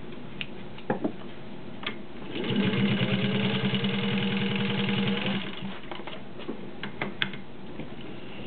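Singer 15-91 sewing machine's gear-driven potted motor running for about three seconds, the needle stitching at a fast, steady rhythm. Light clicks and taps come before and after the run.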